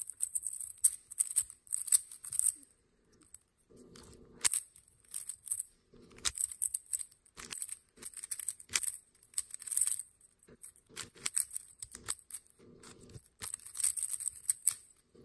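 Stickerless, non-magnetic Yuxin Little Magic 3x3 speed cube being turned by hand: quick plastic clicking and scraping of the layers as they turn, in flurries of rapid moves with short pauses between.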